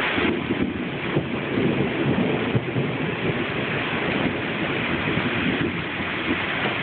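Heavy rain falling steadily, with a low rumble of thunder rolling for about five seconds and dying away near the end.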